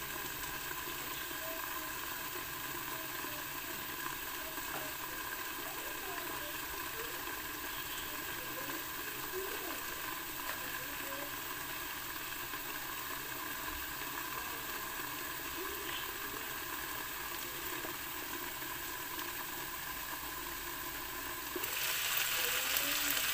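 Chopped vegetables with ground pork cooking in a covered wok, a steady low sizzling and bubbling under the metal lid. Near the end the wok is open and the sizzling turns suddenly louder and brighter.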